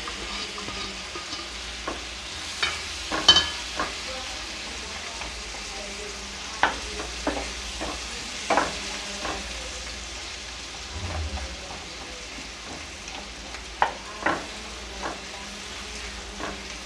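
Sliced onions sizzling in butter and oil in a non-stick kadhai, being softened rather than browned. A spatula scrapes and knocks against the pan now and then as they are stirred, with the sharpest knock about three seconds in.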